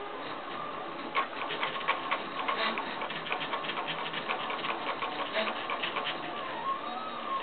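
AF1 3D printer's stepper motors driving the print head during a print: a steady whine with rapid irregular ticks, the whine rising and falling in pitch near the end as the moves speed up and slow down.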